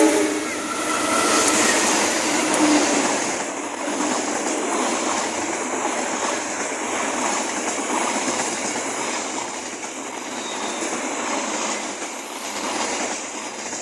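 A passenger train passing close by at speed: a continuous loud rush of wheels on rail and passing carriages that eases off near the end.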